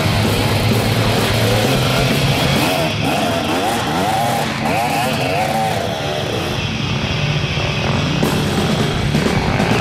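Enduro dirt bike engines revving in rising and falling surges as the bikes climb a steep rocky trail under load, with rock music underneath.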